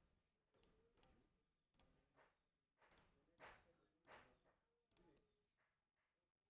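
Near silence with faint, irregular clicks, roughly one a second, and soft rustling between them.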